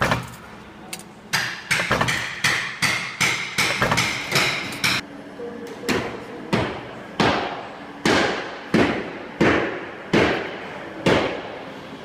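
Stamping press with a progressive die punching lobster-clasp parts from a gold strip: a run of sharp metallic strikes, about three a second, slowing after about five seconds to roughly one every 0.7 s, each ringing briefly.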